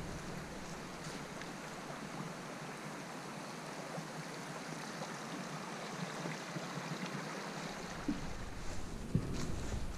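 Steady hiss of a shallow creek running over stones, with a few faint knocks near the end.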